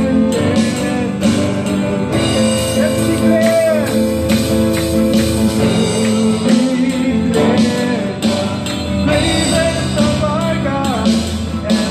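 Live praise-and-worship band playing: a man sings with vibrato into a microphone over a strummed acoustic guitar and sustained Roland keyboard chords.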